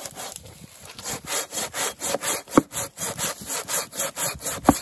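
Samurai Ichiban pruning saw cutting through a dead tree limb in quick, even strokes, about four a second, its teeth rasping through the wood. The strokes pick up about a second in, with two sharp clicks, one midway and one near the end.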